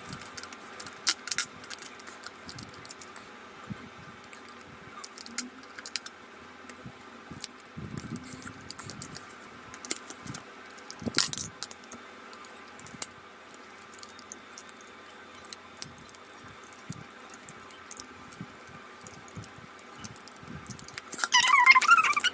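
Plastic pieces of a coreless 3x3 Rubik's cube clicking and clacking as its layers are turned by hand, in irregular scattered clicks with one louder clack about halfway through.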